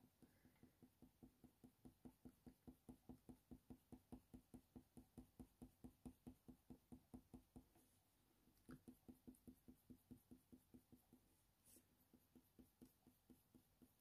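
Faint, rhythmic scratching of a Faber-Castell Polychromos coloured pencil laying short strokes on hot-press watercolour paper, about four strokes a second, with two brief pauses.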